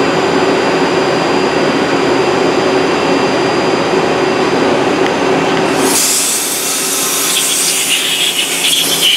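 The Citizen M20 CNC Swiss lathe runs with a steady hum and several fixed tones. About six seconds in, a hand-held compressed-air blow gun starts a loud, steady hiss into the machine's work area.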